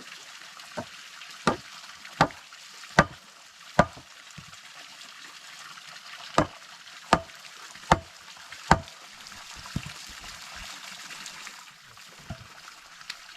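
Steady trickle of running water, over which come sharp knocks in two runs of four, about one every three quarters of a second, with a few fainter knocks between them.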